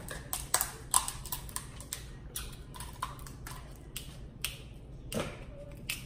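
King crab leg shells cracking and snapping as they are broken open by hand: a string of irregular sharp clicks, a dozen or so, with a slightly louder pair about a second in.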